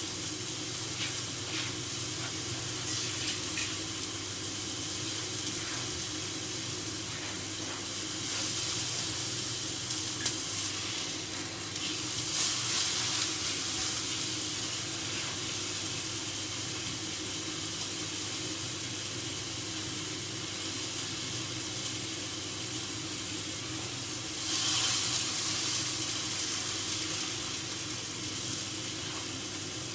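Food frying in a hot pan: a steady sizzle that swells louder a few times, most noticeably near the end.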